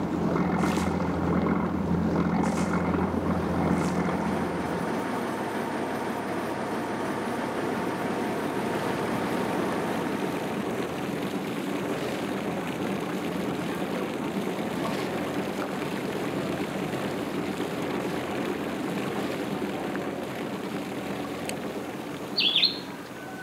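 Motorboat engine running steadily with a pitched drone; its lowest rumble drops away about five seconds in. A short, high chirp sounds near the end.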